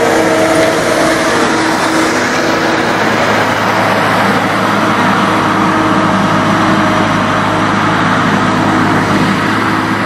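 John Deere 260 skid steer's diesel engine running steadily as the machine grades a dirt track.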